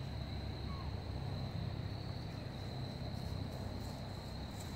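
Crickets trilling steadily at one high pitch over a low background rumble, with faint crackly rustles near the end.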